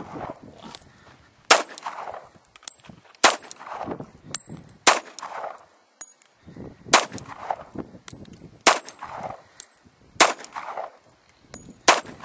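Handgun shots fired one at a time at a steady pace, seven in all, about one every second and a half or so. Each shot is followed by a short echo.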